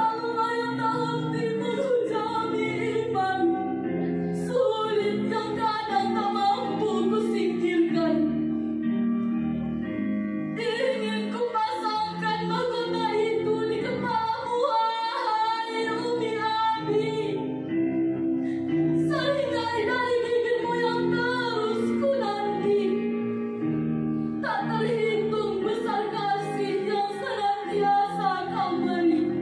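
A group of girls singing together over instrumental accompaniment, in sung phrases of several seconds with short breaks between them.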